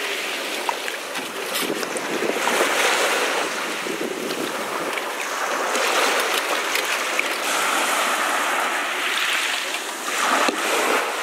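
Small sea waves breaking and washing up a sandy beach, with wind buffeting the microphone; the surf swells and falls every few seconds.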